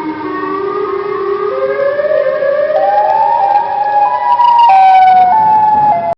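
Eerie wailing horror sound effect: one long pitched wail that climbs in steps over several seconds, dips a little near the end, and cuts off suddenly.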